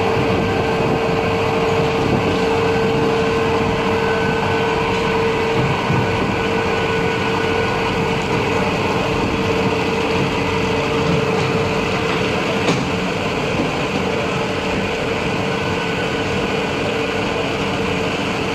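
Industrial hydro extractor (centrifugal spin dryer) running, its drum spinning a load of wet garments: a steady machine hum with a held mid-pitched whine.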